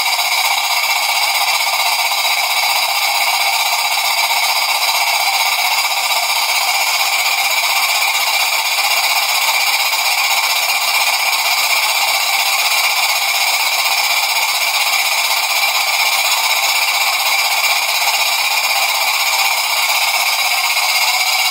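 Jensen 20G toy steam engine running steadily at speed: an even, continuous steam hiss with a high whine through it and no change in pace.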